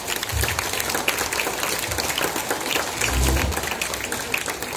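Audience applauding: a dense patter of many hands clapping, with a couple of low bumps.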